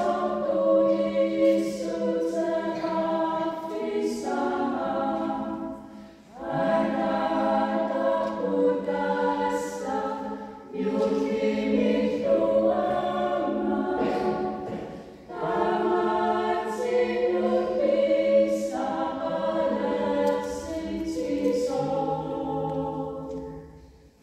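A small mixed choir singing a song a cappella in Greenlandic, in four long phrases with short breath pauses between them. The last chord ends near the close.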